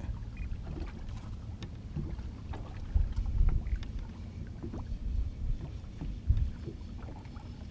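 Wind rumbling on the microphone, with stronger gusts about three seconds in and just after six seconds, over faint scattered ticks and knocks.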